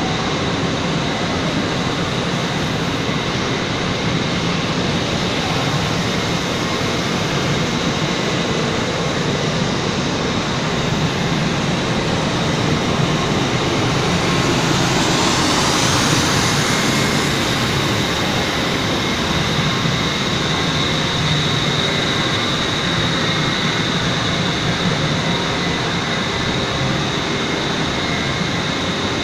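Steady production-line machinery in a chlorinated polyethylene plant workshop: a constant loud hum and hiss with a thin high whine over it, swelling louder for a few seconds about halfway through.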